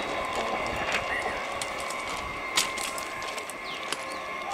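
Two electric multiple-unit local trains running side by side on parallel tracks: a steady rumble with a faint high whine and a few sharp clicks.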